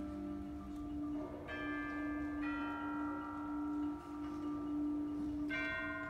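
Middle school concert band playing slow, sustained chords over one held note, the chord changing about a second and a half in, again near the middle, and again near the end.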